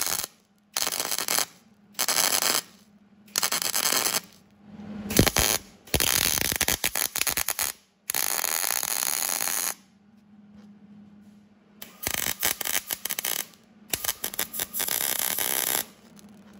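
MIG welder arc crackling as a washer is welded onto a broken-off steel exhaust manifold stud: short bursts about a second apart at first, then longer runs of up to two seconds, with a faint low hum between them.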